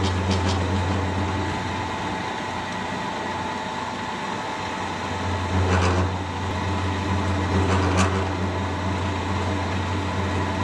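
Vertical milling machine running, an old Woodruff keyseat cutter slowly feeding into a cold-rolled steel shaft: a steady motor hum under the scrape of the cut, with a couple of sharper scrapes about six and eight seconds in. The cutter is slow going, likely a little dull.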